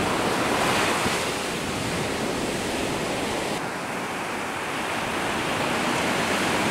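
Ocean surf breaking and washing up a sandy beach, a steady rushing hiss; the upper part of the hiss drops away a little about three and a half seconds in.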